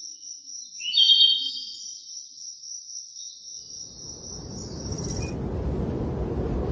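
A steady high-pitched insect trill, like crickets, with a loud short bird-like chirp about a second in. From about four seconds a low rushing noise swells up and takes over as the trill stops.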